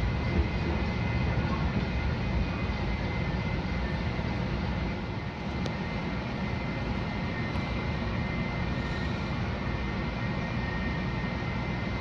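Denver RTD light rail car running along the track, heard from inside the car: a steady rumble of wheels and running gear with a faint, high, steady whine over it.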